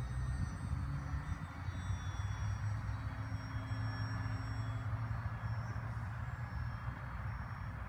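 Radio-controlled foamboard Spacewalker model airplane flying overhead, its electric motor and propeller giving a faint high whine that drifts slowly in pitch as it passes, over a steady low rumble.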